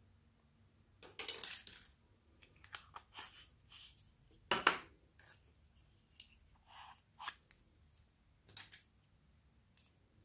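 Small plastic paint pots being handled and opened. There is a scraping rustle about a second in, a sharp plastic knock about halfway through, then scattered lighter taps and scrapes.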